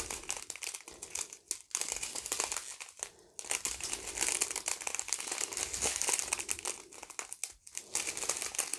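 Small plastic bags of acrylic diamond-painting drills crinkling as they are handled, a dense crackle of thin plastic with a few brief breaks.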